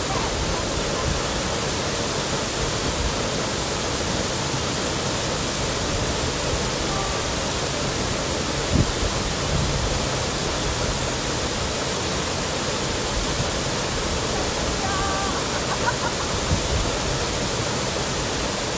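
A waterfall pouring steadily: a continuous, even rush of falling water. A single brief thump sounds a little before halfway.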